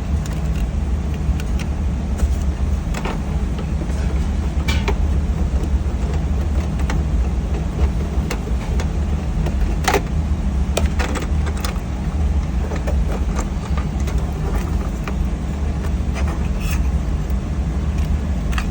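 A steady low rumble of background machinery runs throughout. Scattered light clicks and clinks sound over it, several seconds apart.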